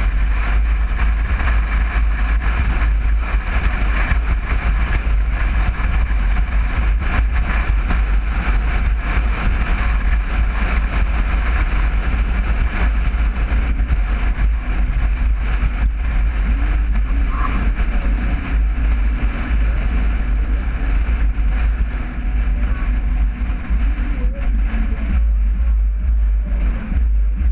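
1961 VW Bus on the move: its air-cooled flat-four and road noise make a steady, unbroken rumble, with a heavy low buffeting of wind on the microphone.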